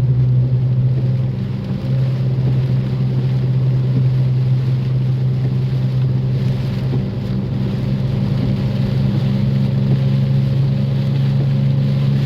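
A vehicle driving through a storm, heard from inside the cabin: a steady low engine and road drone with a hiss of heavy rain and wind over it.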